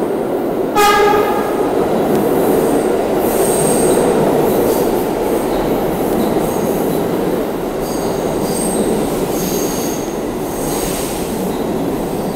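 New York City subway train running into the station: a short horn blast about a second in, then the loud rumble of wheels on rail with intermittent high wheel squeal as the cars go by.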